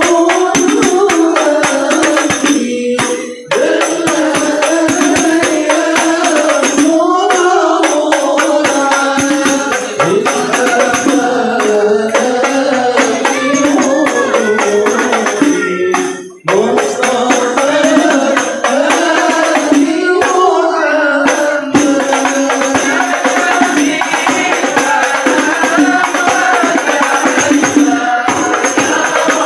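A group of men singing a devotional Islamic chant together, accompanied by a steadily beaten hand-held frame drum (rebana).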